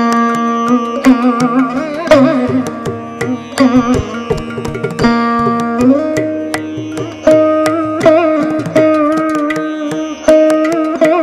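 Veena playing a Carnatic kriti in raga Paras in khanda jati ata tala: sharply plucked notes with wavering, sliding ornaments, the melody dropping to a lower held note about six seconds in.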